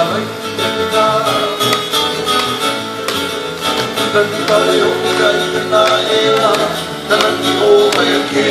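Live Hawaiian music for hula: acoustic guitars and ukulele strummed in a steady rhythm, with a singer's voice over them.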